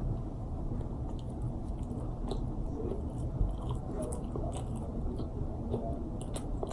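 A person chewing food, with faint scattered mouth clicks, over a low steady rumble.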